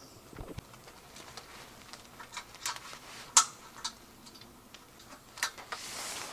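A tarp being handled at a vehicle's roof rack: scattered clicks and light taps from its fittings, the loudest a sharp click about three and a half seconds in, then a rustling swish of the sheet near the end.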